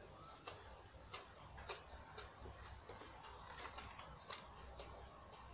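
Faint, light clicks of a spoon and fork against a plate while someone eats, coming at slightly uneven intervals about every half-second, over a low steady room hum.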